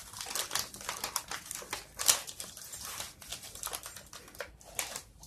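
Plastic packaging of a Lunchables nachos tray crinkling and crackling as it is pulled and peeled open by hand, in an uneven run of quick crackles, loudest about two seconds in.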